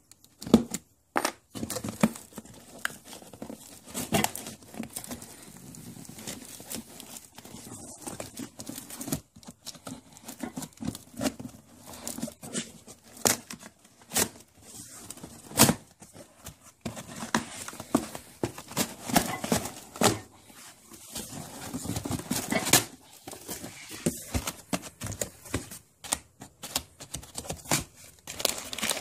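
A cardboard shipping box being opened by hand: tearing, scraping cardboard and crinkling crumpled packing paper, in irregular sharp clicks and crackles.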